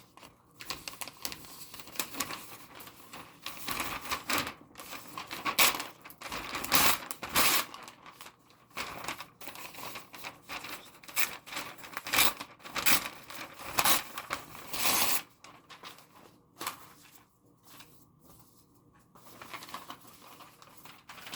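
Paper flyers rustling and crinkling as they are handled and laid down, with scattered clicks and knocks; the handling dies down about fifteen seconds in.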